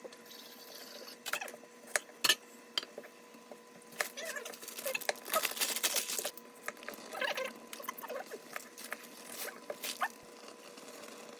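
Close-up eating sounds: chewing with scattered light clicks and knocks of utensils against dishes, busiest about five to six and a half seconds in.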